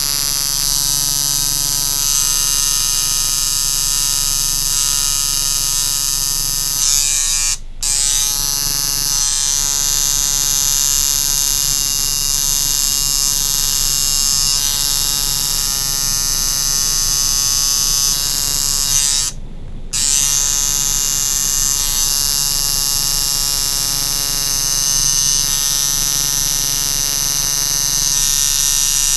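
Coil tattoo machine buzzing steadily as its needle inks outlines into skin, cutting out briefly twice, about a quarter of the way in and again about two-thirds of the way in.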